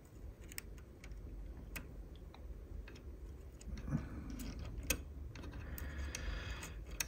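Faint, irregular clicks and light rustles of handling, a few seconds apart, over a low steady hum.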